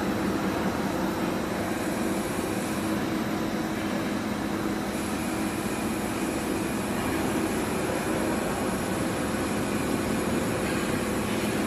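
Large CNC drilling and tapping center running: a steady mechanical hum with a faint high whine that shifts about five seconds in.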